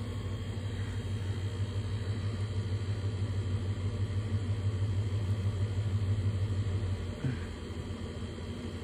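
An engine idling with a steady low hum. The hum drops away abruptly about seven seconds in.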